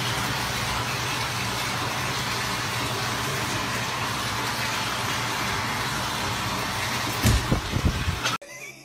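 A steady, loud rushing noise with a low hum under it, and a few knocks about seven seconds in; it cuts off suddenly near the end.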